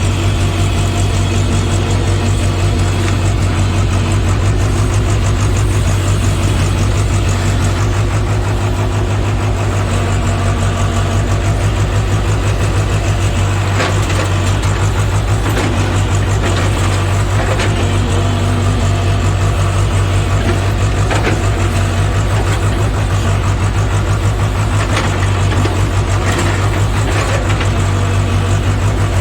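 JCB JS81 excavator's diesel engine running steadily at a low, even pitch, with a few short sharp knocks about halfway through and again near the end.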